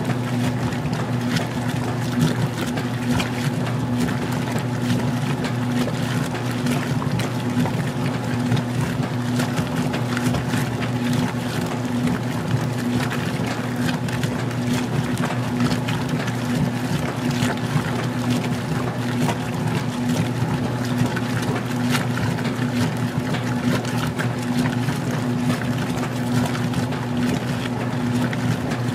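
Magic Chef 20-pound compact top-load washer in its wash agitation: the motor hums steadily while water sloshes in the tub with the small load.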